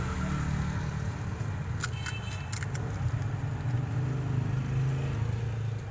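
Steady low hum of a running engine, like street traffic or an idling vehicle, with a few light clinks about two seconds in.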